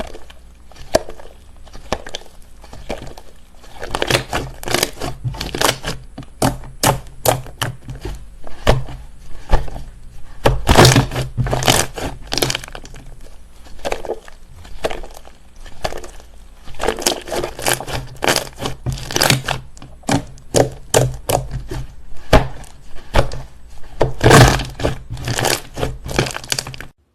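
Slime being pressed and worked by hand, giving dense, irregular crackling pops and clicks that come in clusters, then cut off suddenly near the end.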